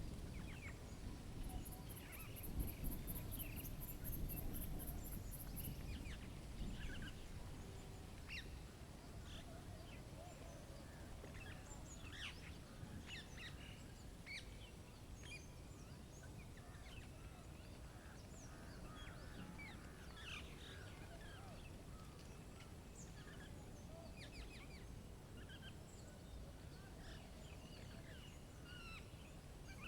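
Birds chirping and calling in short scattered notes throughout, with low rumbling noise during the first few seconds and a brief run of rapid faint high pulses near the start.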